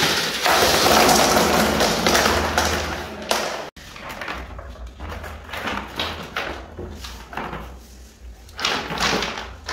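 Rounded pebbles tipped out of a metal bowl, clattering onto a plastic tub for about three seconds and stopping abruptly. After that, single stones are set down on the plastic with scattered taps and knocks.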